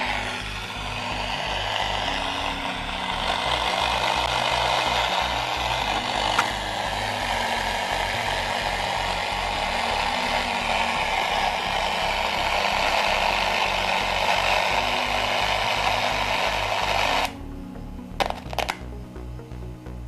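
Music with a steady beat playing through the old Philips radio-cassette recorder's speakers, under a loud hiss. About 17 seconds in the hiss cuts off suddenly, a couple of clicks follow, and the music plays on, quieter and cleaner.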